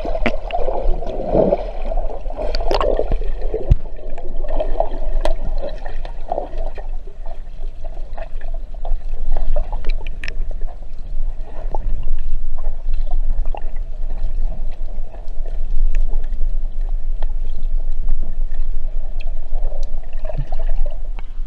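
Underwater ambience: muffled water movement and gurgling, with many scattered sharp clicks throughout.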